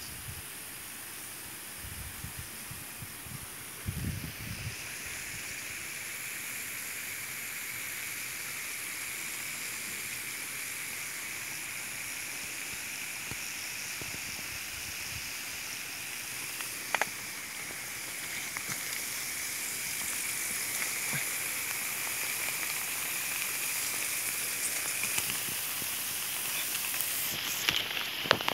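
Irrigation micro-sprinklers spraying water in a steady hiss that grows gradually louder, with a couple of brief clicks about halfway through and near the end.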